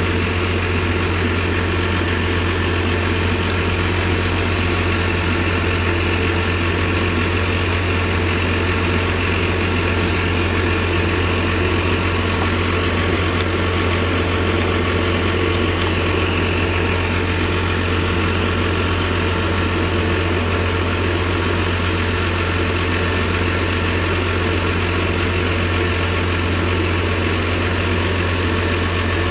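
Claas Jaguar 970 forage harvester, its MAN V8 engine and chopper running at a steady pitch while chopping maize, together with the tractor and trailer driving alongside: a constant deep engine drone.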